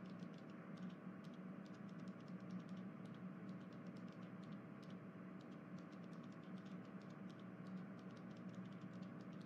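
Faint room tone: a low steady hum with many small, irregular clicks scattered throughout.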